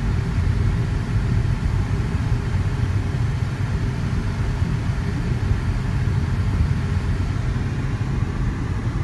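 Steady low rumble of a Volvo car driving along at low speed, heard from inside the cabin: road and engine noise.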